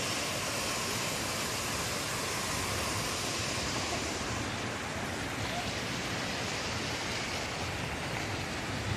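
Steady rush of a waterfall: water pouring over the lip of the falls in an even, unbroken roar of noise.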